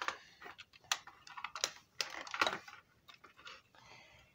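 Irregular plastic clicks and knocks from a Buzz Lightyear action figure being handled on a tile floor.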